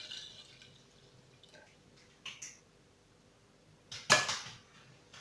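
Milk being poured into a saucepan, a soft splashing that tapers off in the first half-second, followed by a short clink and, about four seconds in, a louder clatter of a utensil against the pan.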